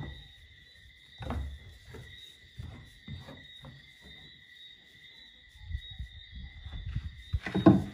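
Young Boer goat kids shuffling and jostling on straw bedding: scattered soft rustles and hoof thuds, with a sharper knock about a second before the end. A faint steady high-pitched whine runs underneath.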